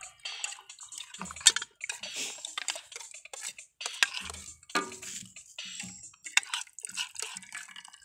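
Spoon clinking and scraping against a plate while eating, in a string of sharp, irregular clicks, the loudest about a second and a half in.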